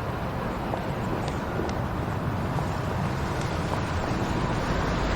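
Steady rumble of traffic ambience, growing slightly louder, with a few faint ticks.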